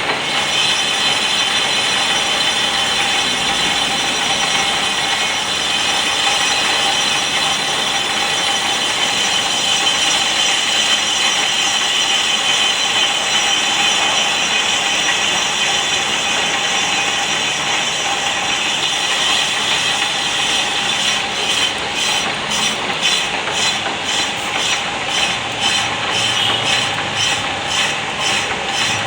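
Manual lathe machining a brake disc rotor, the cutting tool skimming the rotor face with a steady, ringing metallic sound to resurface it and cure brake noise. In the last several seconds the sound pulses about three to four times a second.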